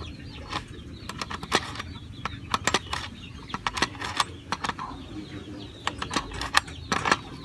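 Metal socket wrench clicking and clinking on a bolt as it is tightened through a plastic motorcycle fairing panel, in short irregular taps.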